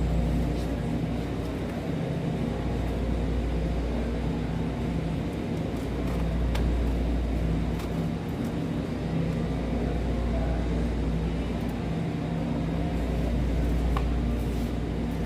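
Steady low hum and rumble of a grocery store's freezer aisle, with a few faint clicks.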